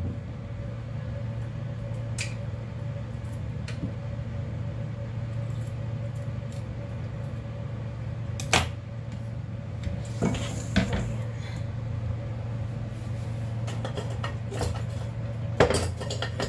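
Scattered knocks and clatters of kitchenware being handled on a counter: a knife and citrus halves on a plastic cutting board, the board being moved, and a stainless-steel mixing bowl set down, the loudest knock near the end. A steady low hum runs underneath.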